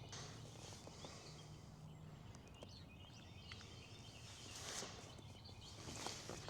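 Near silence: faint outdoor ambience with a few soft, scattered clicks and ticks.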